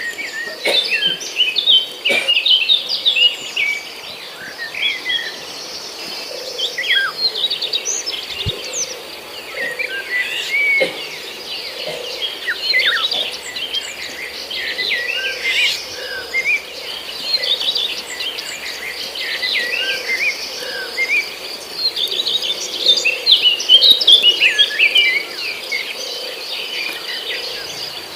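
Many small aviary birds chirping and twittering busily, with a steady high trill underneath. The chirping is loudest about a couple of seconds in and again near the end.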